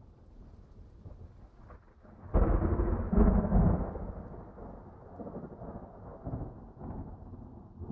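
Thunderclap: a low rumble breaks into a sudden loud crack about two and a half seconds in, then rolls on in fading rumbles with a few smaller swells.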